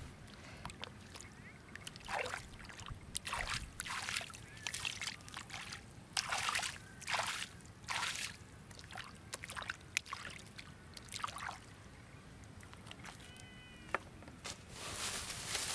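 Bare hands scooping and flinging muddy water out of a freshly dug hole in wet clay, heard as a series of irregular splashes and sloshes.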